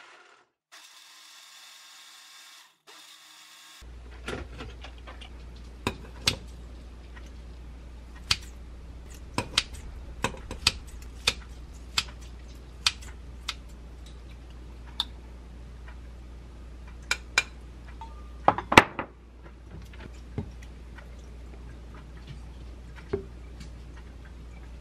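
A small blender whirring briefly, then kitchen scissors and tongs working cooked pork loin on a ceramic plate: a run of sharp snips and clicks with a louder clatter about three quarters through, over a steady low hum.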